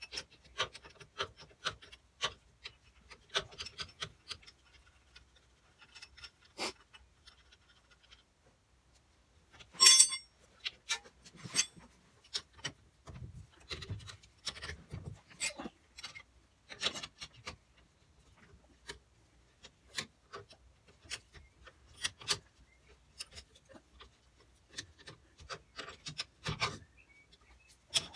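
Spanners and nuts clicking and clinking on a van's front brake back plate and stub axle as the back plate is unbolted, in scattered, irregular taps. One louder ringing metal clink comes about ten seconds in, with a few dull knocks soon after. Work clothing rubs and rustles in between.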